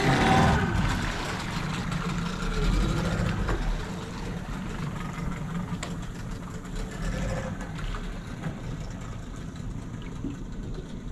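Small outboard motor on an inflatable dinghy running, dropping in pitch in the first second, then quieter as the dinghy moves away.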